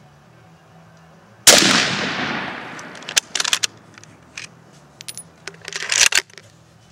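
A single shot from a 1953 Hungarian M44 Mosin-Nagant carbine in 7.62x54R, about a second and a half in, its report echoing away over a second or so. It is followed by metallic clicks and a short scraping rush that cuts off sharply, as the bolt is worked to chamber the next round.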